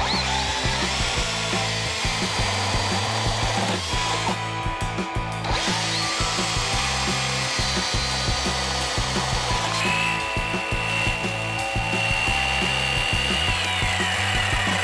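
Electric drill with a spade bit boring into a wooden shotgun foregrip, over background music; a high motor whine from about ten seconds in falls away near the end.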